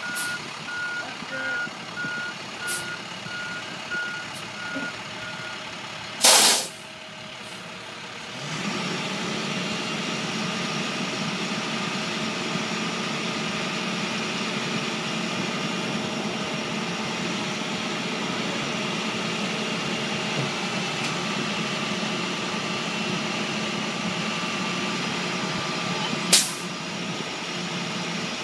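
Tow truck's reversing alarm beeping steadily, then a sudden loud burst of noise about six seconds in. From about eight seconds in the truck's engine runs steadily, with another short loud burst near the end.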